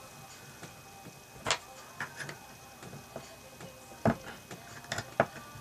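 A handful of short, sharp metal clicks and taps as a Ruger SP101 revolver's trigger assembly is pressed back into its steel frame during reassembly. The loudest click comes about four seconds in.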